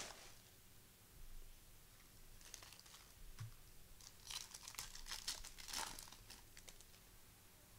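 Faint crinkling and tearing of a foil trading-card pack wrapper as it is opened, in a few crackly bursts, the loudest about halfway through and again a little later.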